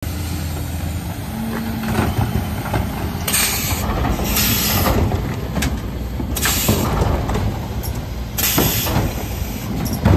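Mercedes Econic refuse truck running behind a Faun Variopress body while its Zoeller lifters raise and tip wheelie bins: a steady engine drone with the knocks and clatter of plastic bins, and several short bursts of hiss.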